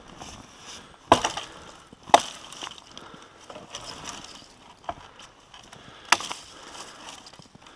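Several sudden sharp cracks or knocks: three loud ones about a second, two seconds and six seconds in, with fainter ones between.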